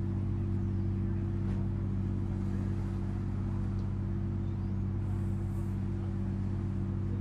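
Steady low hum of a ship's engine, a constant drone on a few even low pitches with a faint hiss above it.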